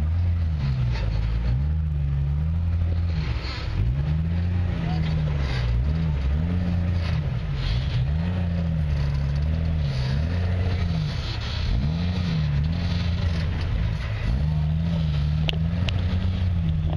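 Off-road vehicle engine running under changing throttle, its revs rising and falling over and over every second or two.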